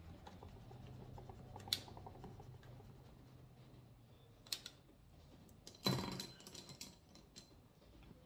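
Small clicks and taps of makeup tools being handled: a single click about two seconds in, another at about four and a half seconds, and a louder run of quick clicks and rattles around six seconds in.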